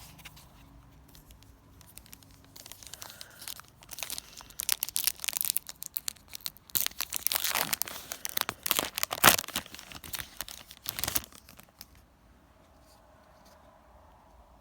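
Foil booster-pack wrapper of Yu-Gi-Oh trading cards being torn open and crinkled, a busy run of crackling and tearing for several seconds in the middle, loudest near the end of it.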